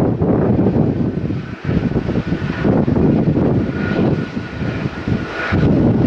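Twin jet engines of an Airbus A330 airliner climbing out after takeoff: a deep, steady engine rumble with a faint high whine in the middle seconds. Strong gusts buffet the microphone, making the sound surge and dip.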